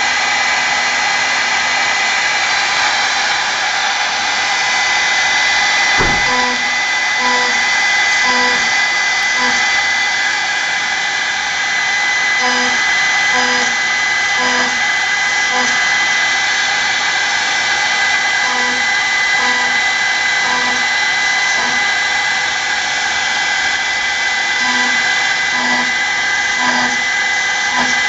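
Homemade CNC mill's spindle running steadily with a high whine as an end mill drills into an aluminium block. Groups of four or five short hums from the DC servo axis motors recur about every six seconds as the machine steps through the drilling.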